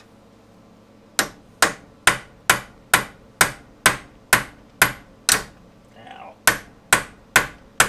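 Hammer striking a steel center punch set in the end of a BMW X5's outer CV axle, driving the splined axle stub back through the front wheel hub: a steady run of sharp metallic taps, about two a second, starting about a second in with a short pause near the end. The axle is moving freely rather than seized in the hub.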